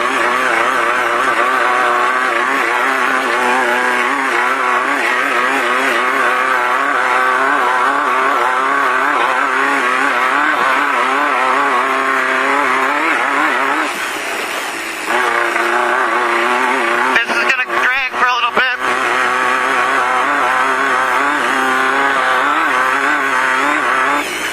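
A VW Beetle-based off-road race car's engine, heard from inside the car, revving up and down continually as it is driven. It eases off briefly a little past halfway. A short burst of sharp clicks comes about three-quarters of the way through.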